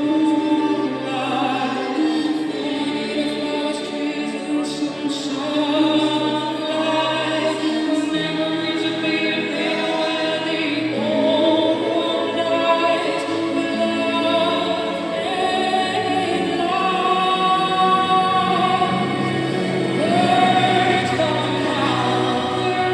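A live pop ballad: a woman singing lead with choir-like backing vocals over instrumental accompaniment.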